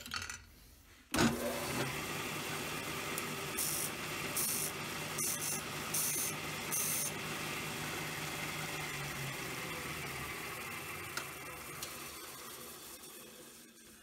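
Bench disc sander switched on about a second in, its motor running with a steady hum. The end of a 7mm brass tube held in a sanding jig touches the abrasive disc in several short rasping bursts as it is sanded down to length. Near the end the motor is switched off and the disc coasts down, fading.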